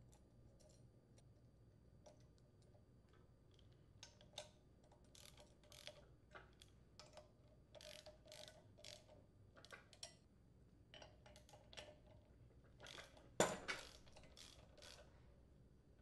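Faint, irregular clicking of a socket ratchet turning the centre screw of a flywheel puller on a small-engine flywheel, with light metal-on-metal clinks of the tool. One click about three-quarters of the way through is louder than the rest.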